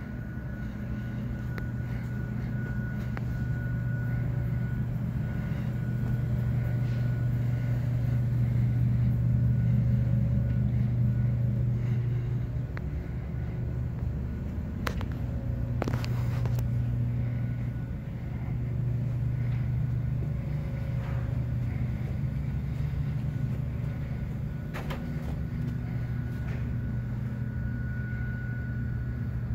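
A steady low mechanical hum that swells and eases, with a thin steady high tone over it and a few sharp clicks about halfway through and again near the end.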